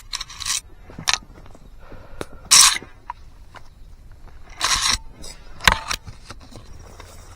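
About five short rustling scrapes, spaced irregularly: movement through dry brush or grass.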